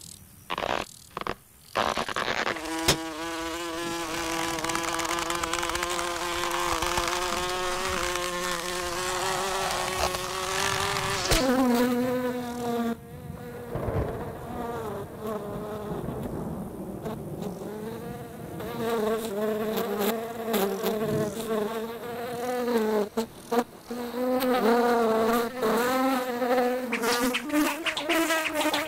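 Cartoon fly's wings buzzing in flight, a sound-effect drone with a clear pitch, after a few short taps in the first two seconds. The buzz holds steady and creeps slightly higher for several seconds, drops lower about eleven seconds in, then wavers up and down.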